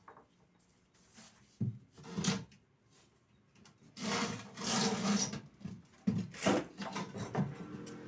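Wooden speaker cabinets being handled and set down on a concrete floor: a few knocks early, a long scraping of wood about halfway through, then several thuds and knocks.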